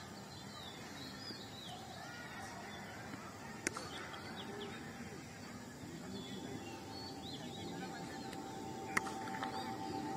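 Small birds chirping over faint outdoor background noise, with two sharp knocks, one near the middle and one near the end. A faint steady tone comes in about two-thirds of the way through.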